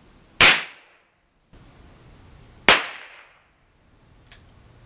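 Two sharp shots, about two seconds apart, from a Humbert Safegom 11.6 mm rubber-bullet defence revolver firing primer-driven rubber balls from a disposable polymer cylinder, each with a short ringing tail. A faint click follows near the end.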